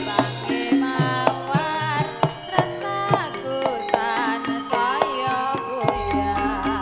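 Javanese gamelan playing: gender metallophones struck with padded mallets, kendhang drum strokes and a wavering female sung line. A deep low tone comes in about six seconds in and lingers.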